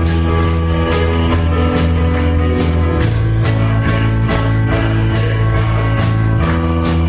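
Worship band music: electric guitar, bass and drum kit playing at a steady beat, with no voice singing.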